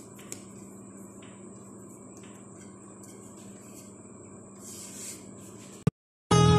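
Faint rubbing and patting of hands shaping a floured dough ball on a stone countertop, over a steady low hum. Near the end the sound cuts off for a moment and strummed acoustic guitar music begins.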